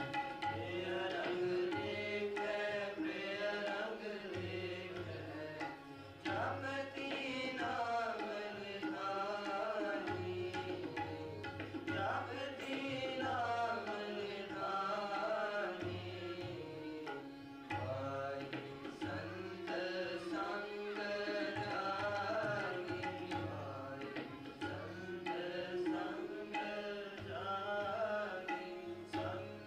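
Gurmat sangeet kirtan in Raag Kedara: tabla keeping a steady rhythmic cycle with deep bass strokes, under a melody from harmonium, bowed string instrument and singing voice.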